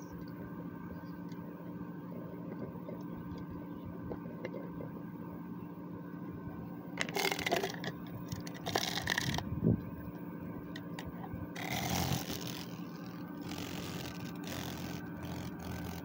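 Clear plastic cup holding a live superb dog day cicada: about four short bursts of scrabbling and rustling against the plastic over a steady low hum.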